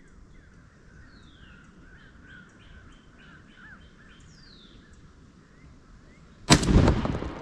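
Birds chirping faintly outdoors, then about six and a half seconds in a single loud shotgun shot from a 12-gauge Remington 870 Super Mag pump firing a 3-inch Winchester Long Beard XR turkey load, its report dying away briefly.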